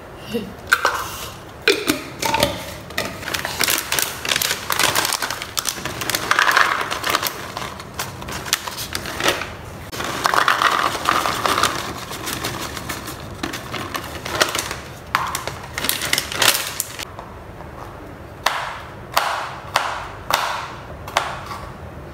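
Almonds and other nuts rattling as they are poured from a bag into a small cup and tipped into a glass mixing bowl, then, near the end, a knife chopping almonds on a cutting board in a steady run of sharp chops about two a second.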